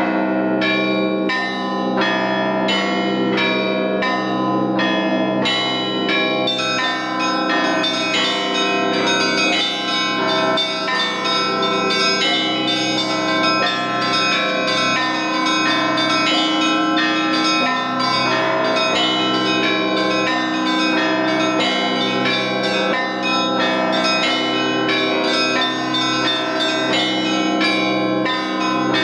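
Russian Orthodox monastery bells in a full peal: many bells of different pitch struck in a quick, steady rhythm, the big low bells ringing on beneath. About six seconds in, the small high bells join in more densely.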